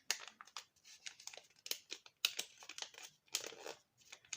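A sheet of notebook paper being folded and creased by hand: irregular rustling and crinkling, a run of quick dry crackles.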